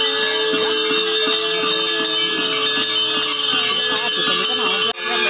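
Brass temple bells ringing over and over, their tones overlapping into a continuous metallic clangour, with a crowd of worshippers' voices underneath.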